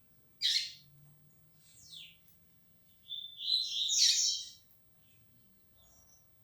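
Double-collared seedeater (coleiro) singing: a short sharp note, a falling note, then about three seconds in a louder, fuller song phrase lasting about a second and a half. It is the song of a bird that is just beginning to sing more firmly.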